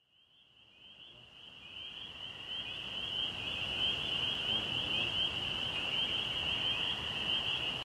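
Cicadas buzzing in a steady, high, shrill drone that fades in over the first few seconds and then holds.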